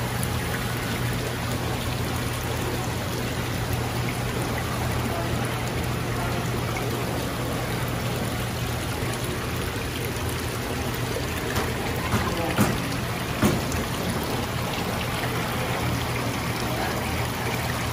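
Steady trickle of water running through live seafood tanks over a low, even pump hum, with a couple of short knocks about two-thirds of the way through.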